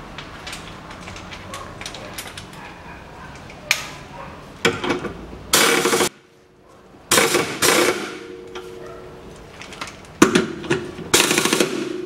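Several short rattling bursts from an impact wrench, each about half a second long, with the loudest just before halfway and a run of them near the end. The wrench is running on or tightening the nuts of a new rear stabilizer link.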